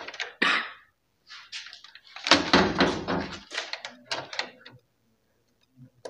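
Handling noise: irregular knocks and scraping as wires and multimeter test leads are moved against the washing machine's plastic frame, loudest a little past two seconds in.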